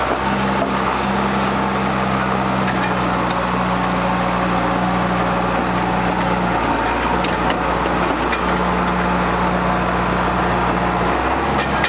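John Deere 450G crawler dozer's diesel engine running steadily under load as the blade pushes dirt, with small shifts in the engine note a couple of times.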